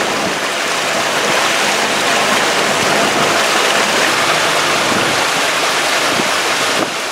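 Steady rushing of water and wind from a motorboat under way, dropping suddenly near the end.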